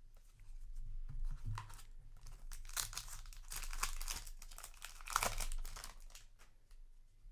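Foil booster pack wrapper crinkling and tearing in a series of rustling strokes as a trading-card pack is ripped open and handled, loudest about five seconds in.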